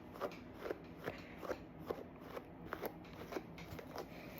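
A brush being pulled through an Australian Labradoodle's curly coat in short, quick strokes, each a soft crackly scrape, about two to three a second.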